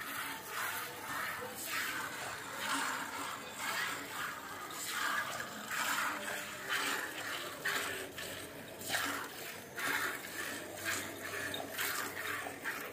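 Milk squirting from a cow's teats into a steel pot during hand milking: a short hiss with each squeeze, repeating a little more than once a second.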